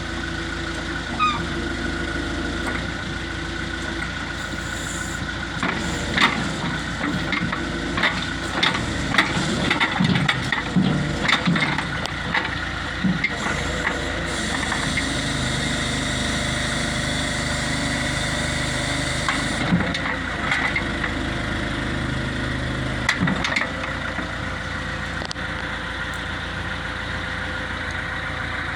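The diesel engine of a 2003 John Deere 410G backhoe runs steadily. A series of sharp clanks and knocks comes in the middle, with a few more later.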